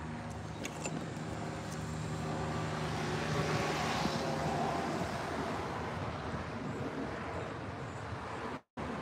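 A motor vehicle passing: a steady engine hum and a rushing noise that swells about four seconds in and then fades. The sound cuts out for a moment near the end.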